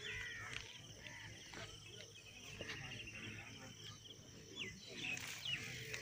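Insects, cricket-like, trilling steadily in fast, even pulses, with a few short chirps over them near the start and about five seconds in.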